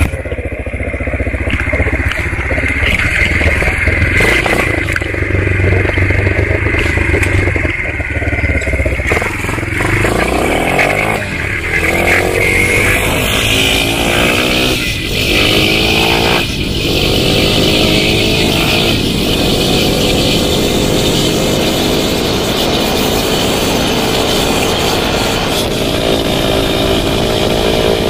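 Yamaha motorcycle engine running while being ridden: a low rumble at first, then its pitch climbs in several rising steps through the middle before holding steady at cruising speed, with a rush of wind on the microphone.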